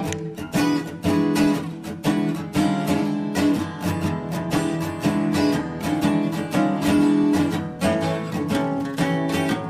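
Background music: a strummed acoustic guitar with a steady run of strokes.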